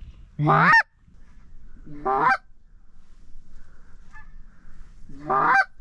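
Hand-held goose call blown in three loud honks, each rising in pitch and breaking at the top; the third comes after a longer pause.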